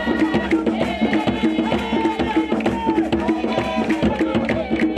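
Rhythmic African music with drums and percussion, a steady fast beat that carries on unbroken, accompanying a traditional dance.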